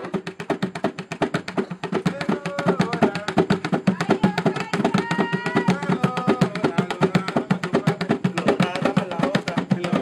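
Hand drumming on plastic buckets: palms slapping the bucket tops in a fast, even rhythm.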